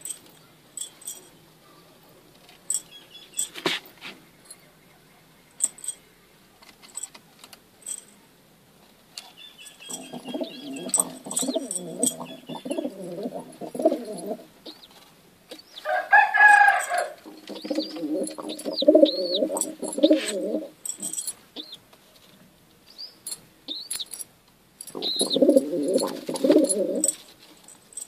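Domestic pigeons cooing: three long bouts of low, rolling coos, with a brief louder, higher-pitched call just before the second bout. Short chirps and clicks are scattered between the bouts.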